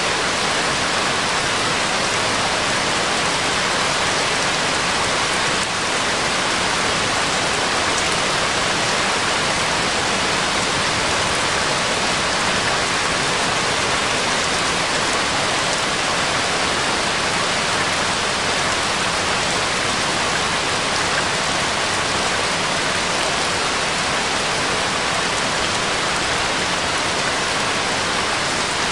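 Steady rain-like hiss, even and unbroken with no tune or voice, the masking bed of a subliminal affirmation track whose affirmations are meant to lie below hearing.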